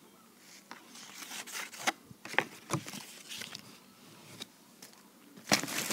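Paper cards and a candy package being handled: scattered rustles and small clicks, with a louder bout of rustling near the end.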